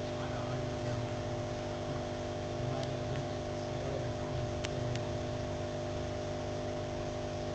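A steady low hum made of several fixed tones, with a few faint clicks.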